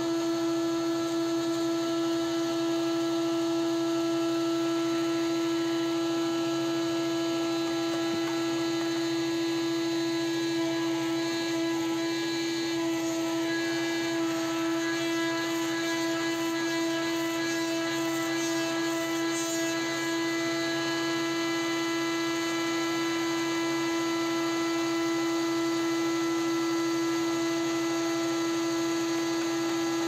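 Wood-Mizer WM4500 industrial band sawmill running with a steady machine hum.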